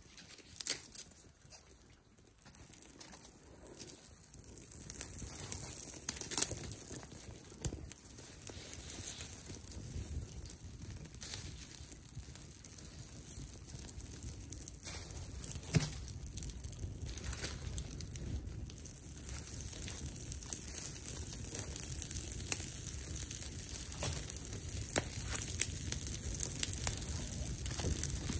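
Small campfire catching again after being smothered: kindling crackling with scattered sharp snaps over a low rush of flame that grows steadily louder.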